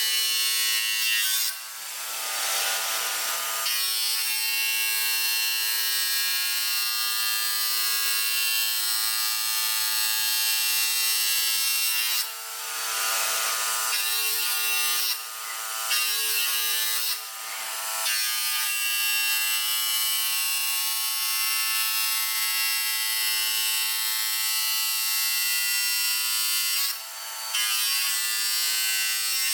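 A CNC stone-working machine running, a steady high-pitched motor whine with hiss. It dips briefly about five times, around two, thirteen, fifteen, seventeen and twenty-seven seconds in.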